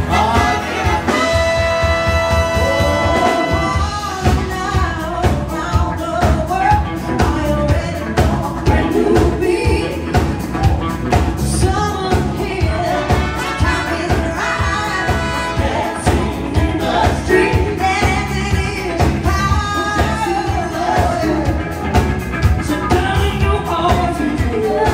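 A live band playing, with drums keeping a steady, driving beat under a shifting lead melody.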